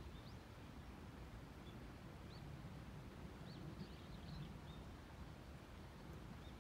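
Faint outdoor ambience: a low steady background rumble with several short, high bird chirps, most of them bunched in the middle.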